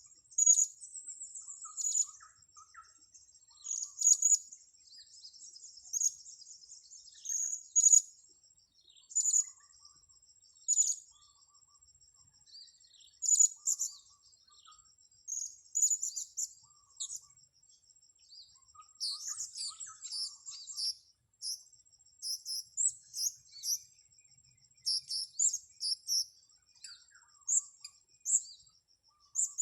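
Blue-crowned hanging parrots (serindit) giving short, sharp, high-pitched chirps every second or two, more frequent and overlapping in the second half. A steady thin high whine runs underneath.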